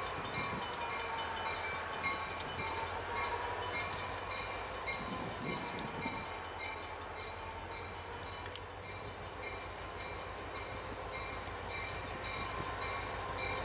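Diesel locomotive of a freight train approaching along a street track: a steady low engine rumble with a held, slightly wavering whine, and its bell ringing in a regular beat.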